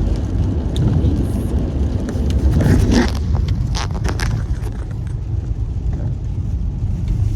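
Steady low rumble inside a car, with a brief scraping and a few sharp clicks about three to four seconds in.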